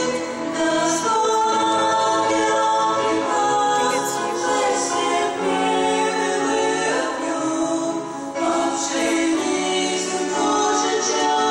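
Mixed choir of men and women singing a hymn, with many voices in harmony.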